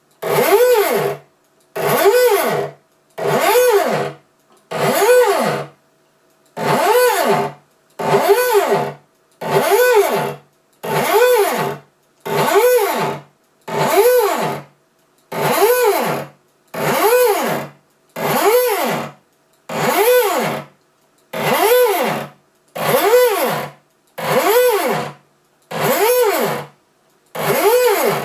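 Stepper motors of a home-made CNC router driving an axis through its ball screw in repeated short moves, about one every second and a quarter. Each move gives a whine that rises in pitch as the motor speeds up and falls again as it slows to a stop. The gaps between moves are near silent, so the spindle is not running.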